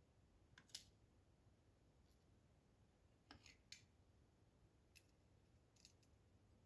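A few faint, sharp clicks of small metal lock parts (pins, springs) and a handling tool being picked up and set down on a work surface while a gutted dimple-lock cylinder's parts are sorted.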